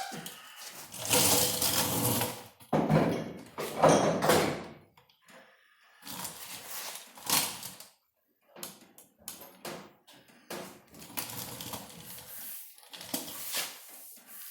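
Irregular metal knocks, clicks and scrapes of hand work on a car's sheet-metal body panels, heaviest in the first few seconds.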